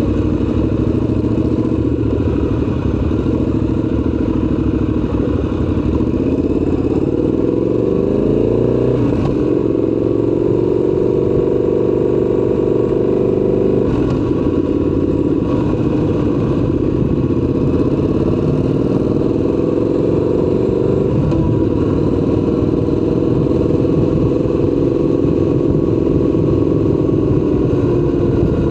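Triumph Scrambler 1200 XC's 1200 cc parallel-twin engine running under way. Its pitch rises twice as it accelerates, once about a quarter of the way through and again past the middle, and holds steady while cruising in between.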